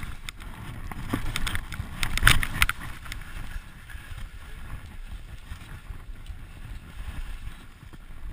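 Skis sliding over snow with wind buffeting the body-mounted camera's microphone, as a skier moves downhill. A few sharp knocks come in the first three seconds, loudest about two seconds in.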